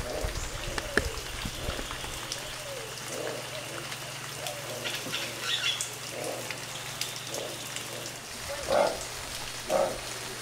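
Black howler monkey calling: a string of short calls, growing into louder ones about a second apart near the end.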